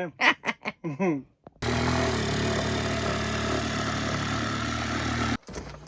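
A motor running steadily for about four seconds with a low hum, starting and stopping abruptly.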